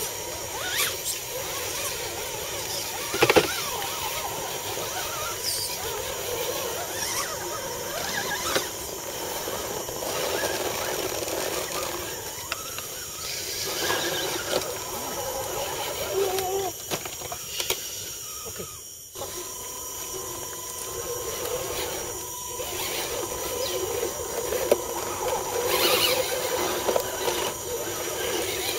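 Electric motors and gear trains of RC scale crawler trucks whining steadily as they crawl over rocks and roots, with scattered clicks and knocks of tyres and chassis on rock; one loud knock about three seconds in.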